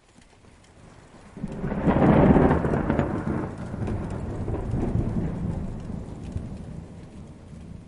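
A peal of thunder over rain: it breaks suddenly about a second and a half in, is loudest just after, then rolls on and slowly fades toward the end, with the patter of rain throughout.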